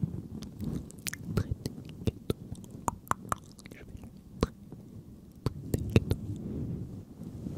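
Close-up ASMR mouth sounds: many sharp, wet clicks and smacks over soft, unintelligible whispering.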